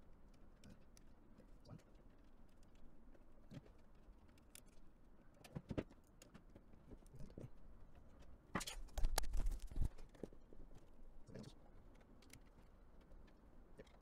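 Screwdriver turning small screws into a metal bracket on a power supply unit's case. Faint scattered ticks and clicks, with a louder run of metallic clicking and knocking about nine seconds in.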